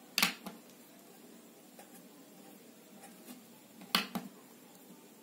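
Felt-tip marker caps clicking as the markers are swapped: one sharp click just after the start and a quick double click about four seconds in.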